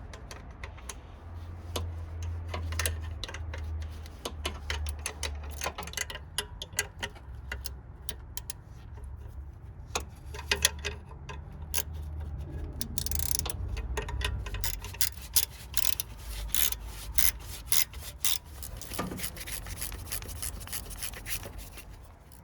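Hand tools at work: many irregular sharp clicks and ticks with some rubbing and scraping, over a low rumble.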